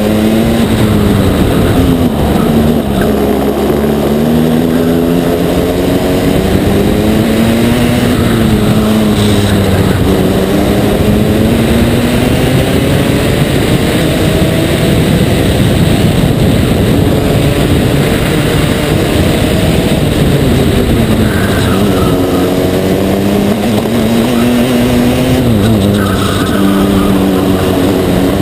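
Aixro XR50 single-rotor Wankel engine of a racing kart at race pace, heard from on board: its pitch climbs as it accelerates along the straights and drops sharply several times as the driver lifts and brakes for corners.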